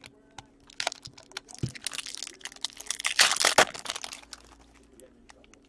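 Hockey trading cards and their pack wrapper being handled: cards flicking and rustling against each other with a crinkling of the wrapper, a dense run of clicks for about three seconds, followed by a few light ticks.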